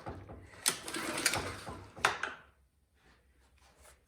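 Recoil starter rope on a Craftsman pressure washer engine pulled once, switch off, for about a second and a half starting about half a second in. The engine turns over without binding or clunking because the piston is not moving, a sign that something has gone wrong with the connecting rod and crank.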